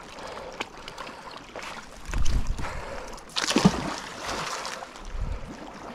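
A magnet-fishing magnet thrown out on its rope and hitting the reservoir water with a sharp splash about three and a half seconds in. Dull low rumbles come about two seconds in and again near the end.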